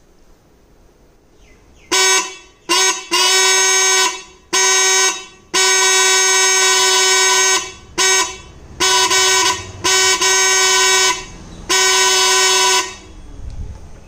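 Homemade electric twin-trumpet horn sounding in a series of about nine loud blasts, some short toots and some held for one to two seconds, starting about two seconds in. Each blast is one steady, even-pitched tone.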